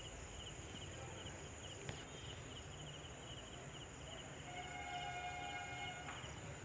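Faint insect chirping in quick regular pulses, about four or five a second, over a low steady hum, with a small click about two seconds in.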